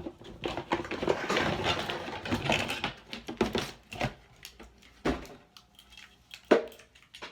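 Close handling noise of hair and hair tools: rustling with many small clicks for the first half, then a few separate sharp clicks or taps with quieter gaps between them. The hot-air brush is not running.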